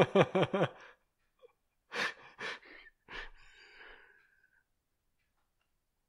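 A person laughing: a quick run of short 'ha' pulses at the start, then a few breathy laughs and exhalations that die away about two thirds of the way through.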